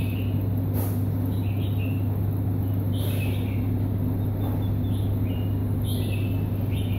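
Small birds chirping in short calls every second or so over a steady low hum, with a brief knock about a second in and another about three seconds in.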